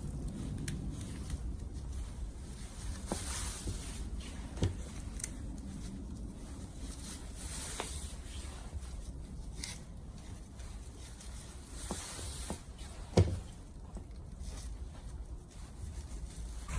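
Raffia rubbing against a split bonsai trunk as it is wrapped around it, with scattered small clicks and one sharper knock about three quarters of the way through.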